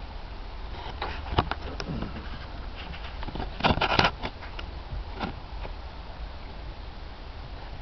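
A horse's hooves thudding on grass in scattered, uneven strikes under a steady low rumble, with a louder burst of knocks and rustling about three and a half seconds in.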